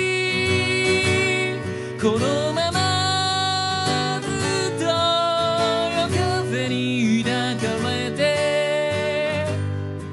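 A man singing with long held notes over his own strummed acoustic guitar in a live acoustic performance.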